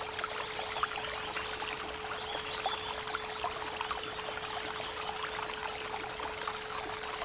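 Creek water trickling and babbling, under a steady pure tone at 432 Hz. A few faint, high bird chirps come in, one or two of them within the first second or so and another few about three seconds in.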